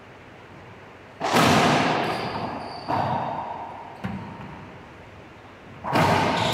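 A racquetball rally: the ball cracks off racquets and the court walls four times, each crack followed by a long, echoing ring. The loudest hits come about a second in and near the end.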